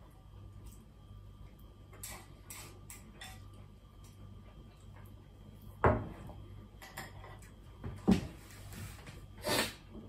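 Bowl set down on a wooden tabletop with a sharp knock about six seconds in, after light clicks of chopsticks against the bowl; a couple of quieter knocks and a short scrape follow as the chopsticks are laid across the bowl and a glass is handled on the table.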